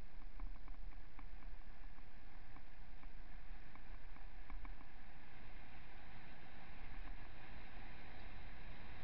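Steady rush of wind on the microphone with a low rumble while riding along a gravel dirt road, with light ticks and rattles during the first half.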